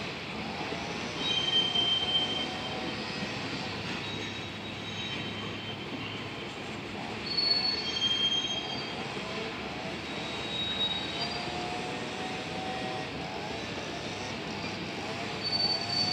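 Freight train of covered hopper cars rolling past, its wheels rumbling steadily on the rail with intermittent high-pitched wheel squeals. The squeals are loudest about a second and a half in, near the middle, and again at the end.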